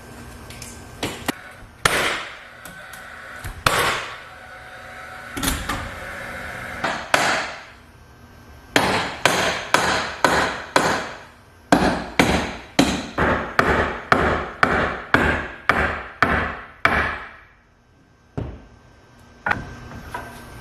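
Hammer driving nails into 2x4 lumber: a few scattered blows, then steady runs of sharp strikes at about two a second, each with a brief ring. The blows stop shortly before the end.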